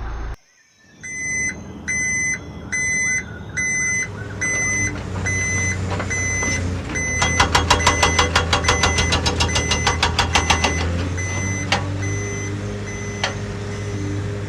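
Reversing alarm beeping at an even pace, a little faster than once a second, over a steady low motor hum. It stops near the end. A fast run of clicks sounds in the middle.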